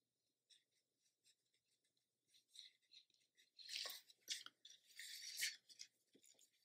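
Faint, scratchy rubbing of a watercolor brush working over cold-press watercolor paper in short strokes, sparse at first and more frequent past the middle.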